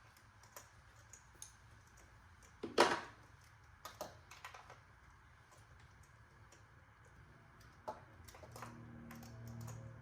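Irregular small metal clicks and taps of a spark plug socket and extension being handled while spark plugs are threaded in by hand, with one louder knock about three seconds in. A faint low hum comes in near the end.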